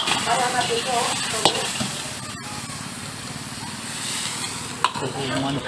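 Veg manchurian balls sizzling in a large wok as a long ladle stirs them, with steam rising off the pan. The ladle knocks sharply against the wok twice, about a second and a half in and near the end.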